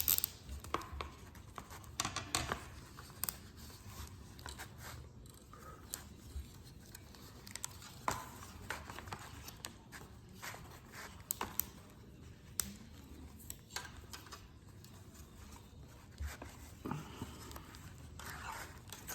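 Faint, scattered ticks and rustling of hands wrapping a plastic zip tie around a part and pulling it tight.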